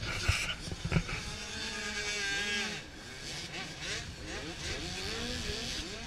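Several dirt bike engines revving, their pitches rising and falling and overlapping. A couple of sharp knocks come in the first second.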